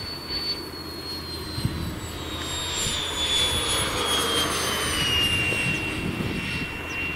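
Electric ducted fan of a 3D-printed RC Harrier jet in flight: a high whine over a rushing air sound, falling steadily in pitch and loudest about three to five seconds in as the plane comes close.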